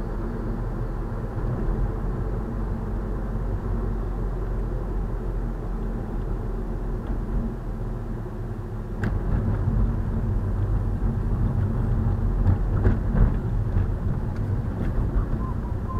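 Steady engine and road rumble heard inside a moving car's cabin. About nine seconds in there is a sharp click, followed by a few seconds of rougher, louder knocks and thumps.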